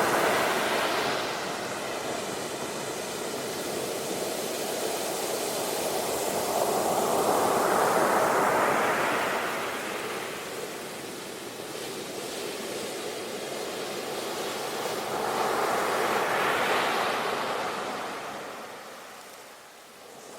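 Ocean surf on a beach: waves swelling and washing in about every eight seconds, falling to a softer lull near the end.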